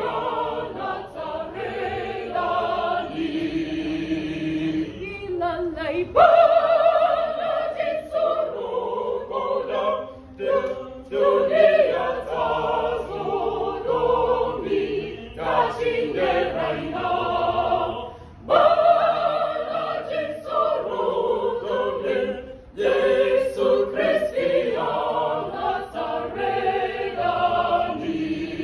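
Small youth choir singing unaccompanied, with short breaks between phrases.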